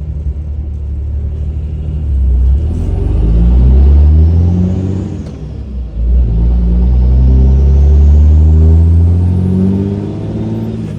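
2006 5.9 Cummins inline-six turbo-diesel with a cheap open aftermarket intake, its engine building up hard twice. Each time the turbo's whistle rises in pitch over the diesel rumble, then falls away as the engine lets off.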